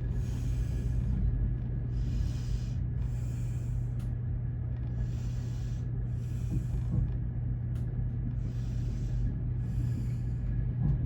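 Heavy breathing close to the microphone, a hissy breath about every second and a half, over the steady low rumble of the VIA Rail Canadian train running, heard inside its cabin.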